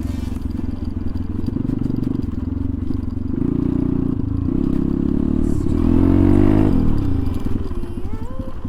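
Motorcycle engine running under riding, revving hard with a steeply rising pitch about six seconds in, then dropping back as the throttle closes.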